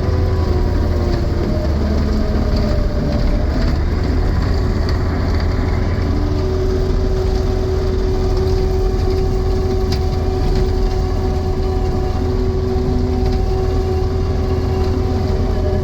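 Takeuchi TL12 tracked skid steer's diesel engine running steadily, with a steady whine over the engine note that shifts pitch briefly a few seconds in.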